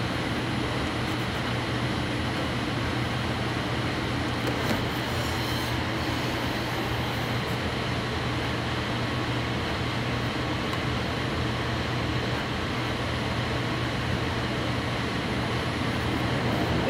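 Steady ventilation and electrical hum of an AirTrain JFK car standing at a station, with a faint high-pitched whine above it.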